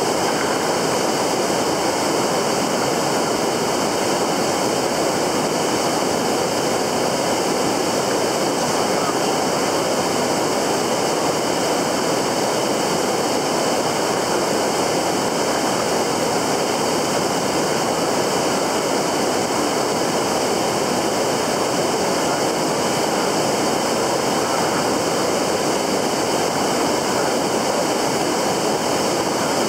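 Steady rush of flowing stream water, an even unbroken noise with no distinct events.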